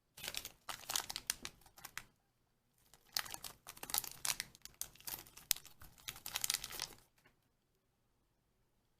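Shopkins blind-pack wrapper crinkling and tearing as it is opened by hand, in two bursts: one of about two seconds, then another of about four that stops about seven seconds in.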